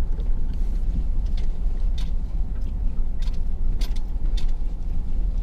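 Steady low drone of a 2001 Ford SVT Lightning's supercharged V8 running at an even speed, with a few sharp clicks and ticks.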